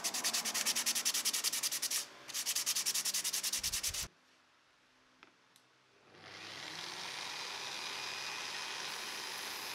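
Olive wood spoon being hand-sanded with sandpaper: fast, even rubbing strokes with a short break about two seconds in, stopping suddenly at about four seconds. After a couple of seconds of quiet with a click or two, an electric angle grinder fitted with a sanding disc starts up and runs steadily.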